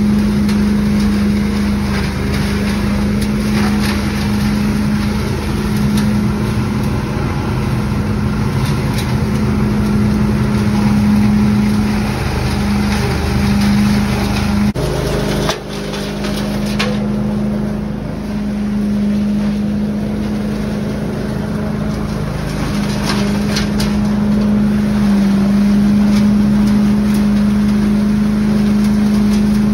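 29 HP Scag leaf and debris loader running steadily at working speed, a loud constant engine-and-fan hum. Leaves are raked into the intake hose and drawn through it with a rushing noise.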